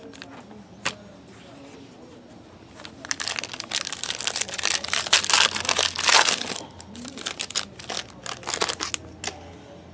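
Foil wrapper of a trading-card pack being torn open and crinkled: a dense stretch of crackling from about three seconds in, then sparser crinkles.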